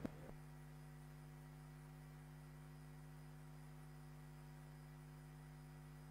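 Near silence: a faint, steady electrical hum of a few low constant tones in the sound feed.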